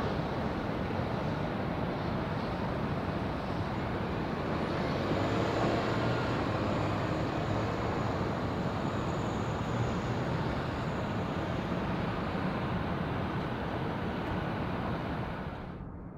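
Distant jet airliner rumble, a steady roar with a faint high engine whine through the middle. It cuts to a quieter background just before the end.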